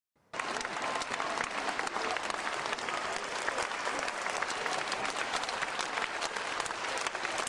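Audience applauding: dense, steady clapping that cuts in suddenly just after a moment of silence and holds at an even level.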